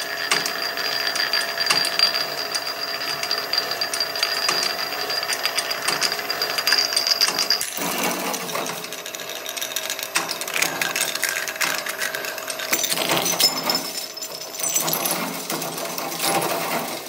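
Twin-shaft shredder running with its cutters grinding and cracking a ceramic mug into shards: many sharp cracks and crunches over the machine's steady running. A high steady whine drops away about eight seconds in.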